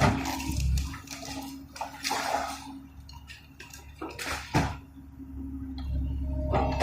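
Komatsu PC130F hydraulic excavator's engine running steadily under irregular clattering and crashing of building rubble being broken and dropped during demolition, with a sharp crash about four and a half seconds in.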